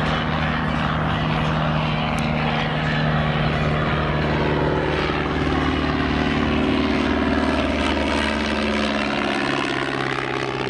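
de Havilland Tiger Moth biplane's Gipsy Major four-cylinder engine and propeller running steadily in flight. The engine note changes pitch partway through as the aircraft banks and manoeuvres.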